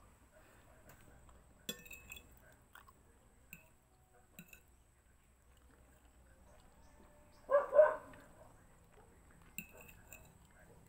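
A metal fork clinking and scraping lightly against a plate of spaghetti a few times. About seven and a half seconds in come two short, loud cries close together, the loudest sound.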